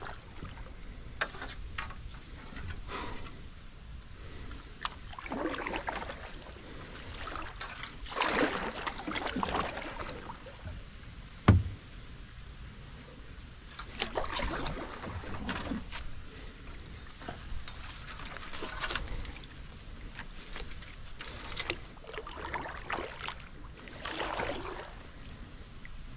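Kayak paddle strokes through swamp water: irregular swishes and splashes every second or two, with water dripping and sloshing between them. A single sharp knock about halfway through.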